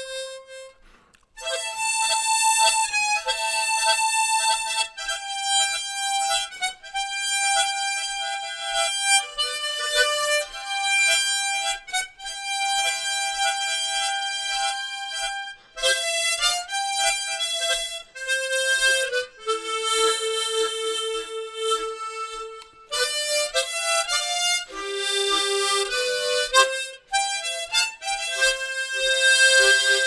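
Harmonica playing a slow melody in long held notes, with a short break about a second in.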